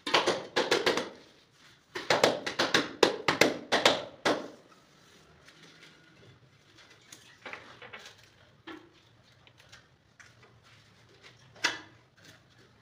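Hand repeatedly slapping the face of a large wall tile to bed it in, in two quick runs of sharp taps in the first four seconds, then a few scattered light knocks.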